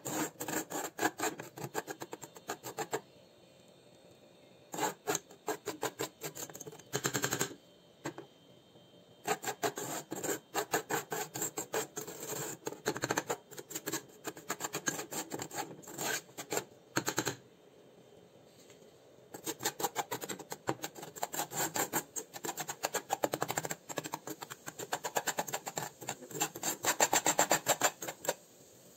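Metal spoon scraping and stirring damp soil around the bottom of a stainless steel saucepan: rapid repeated gritty strokes, broken by a few short pauses. The soil sample is being dried.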